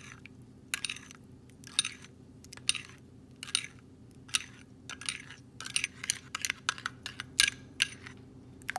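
Metal spoon clinking against a ceramic bowl while stirring a thick sauce, in irregular strokes about one to two a second.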